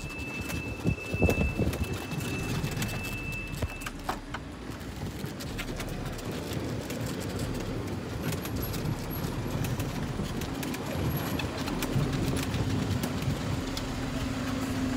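Wheels rolling over cobblestone paving, a continuous clatter of small knocks and rattles. A thin high tone sounds for the first few seconds, and a steady low hum joins about ten seconds in.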